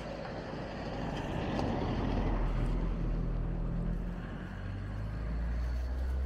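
A small sedan drives past on an asphalt lane. Its engine and tyre noise swell to a peak about two seconds in as it passes, then a low engine rumble carries on.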